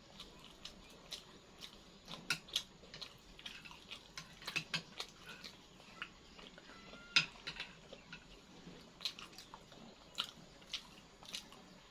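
Close-up eating sounds: people chewing and biting, with irregular short mouth clicks and smacks.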